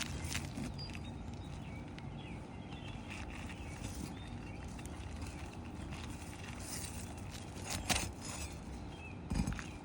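Scattered scuffs and taps of asphalt shingles being pried and unsealed on a roof, with a couple of sharper knocks near the end, over a steady low background hum.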